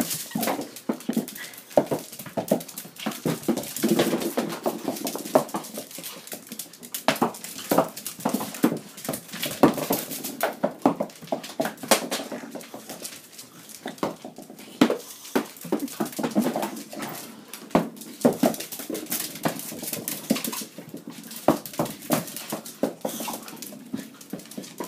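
A small dog playing on a hard floor: many irregular clicks and taps of its claws and of small bounced objects hitting the floor, with occasional short vocal sounds from the dog.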